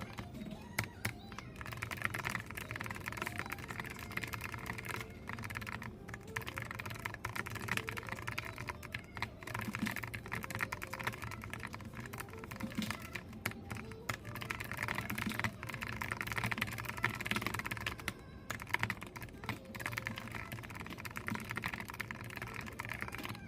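Computer keyboard being typed on: a fast, irregular stream of key clicks, with short pauses between runs.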